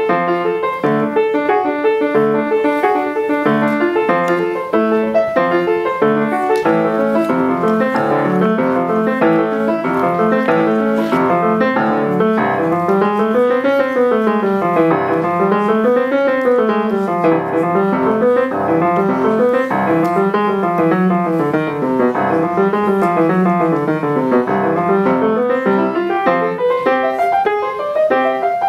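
Solo grand piano played from sheet music, a steady stream of notes; from about halfway through, runs of notes rise and fall repeatedly in the lower and middle range.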